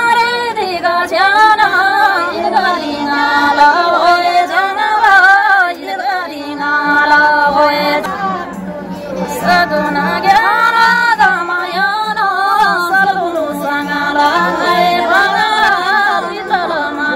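A woman singing a Tamang folk song, her melody bending and turning in ornamented phrases. A steady low tone joins about seven seconds in.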